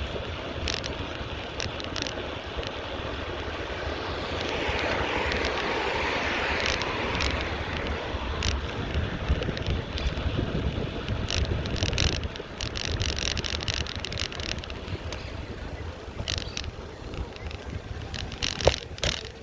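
Street ambience heard from a moving bicycle: steady rumble of wind and road noise on the microphone, with scattered sharp clicks and rattles. A rushing noise swells and fades from about four to eight seconds in.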